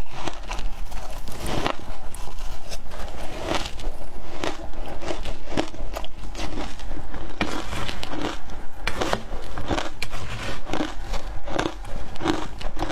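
Crushed ice dusted with matcha powder being bitten and crunched in the mouth, a run of crisp, irregular crunches one after another.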